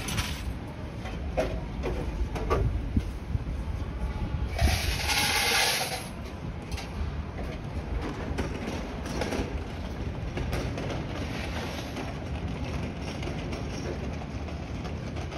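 Outdoor city street ambience: a steady low rumble of distant traffic with a few faint knocks and steps. About five seconds in, a loud hiss lasts a little over a second.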